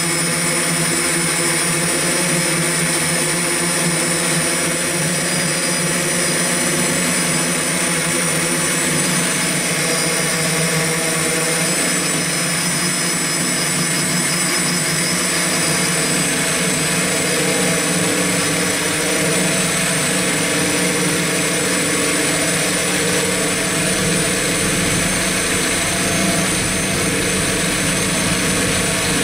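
X8 octocopter's electric motors and propellers running in steady flight, heard close from the camera it carries: a steady hum made of several whining tones over a hiss.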